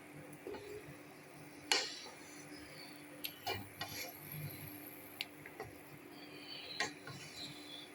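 A cooking spoon clinking and tapping against a pot of fried rice, about half a dozen light, separate knocks, with a faint steady hum underneath.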